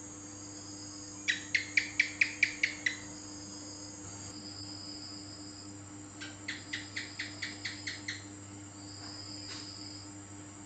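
House gecko (cicak) calling: a quick series of about seven sharp chirps, and a few seconds later a softer series of about nine, over a steady low hum and faint high-pitched tones.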